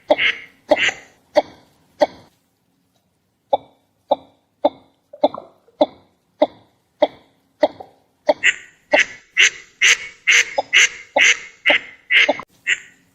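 Northern shoveler calling in a long series of short, clipped notes, about two to three a second. The calls break off for about a second and a half two seconds in, come back softer, then grow louder and quicker from about eight seconds in.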